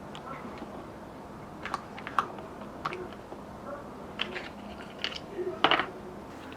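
A handful of light, sharp clicks and taps of kitchen work, spread irregularly over a steady low background, the loudest coming in a short cluster near the end.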